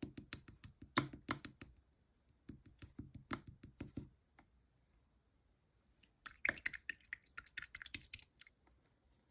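Pink slime being worked by hand, giving quick runs of small clicks and pops in three spells, with pauses about two seconds in and again from about four to six seconds in.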